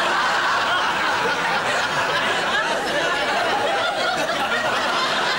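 Studio audience laughing steadily, many voices at once.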